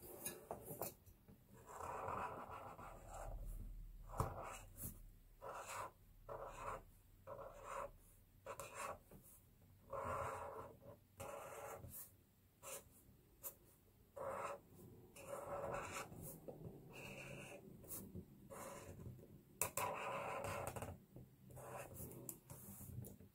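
Black marker drawing outlines on a sketchbook page: a faint run of short, irregular strokes of the tip rubbing across the paper, with brief pauses between them and a few longer strokes.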